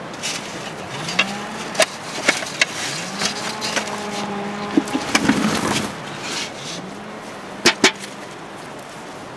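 Potatoes knocking against one another as they are handled and sorted on the soil, a scatter of sharp clacks. Under them a motor-like hum rises in pitch and then holds steady, three times over.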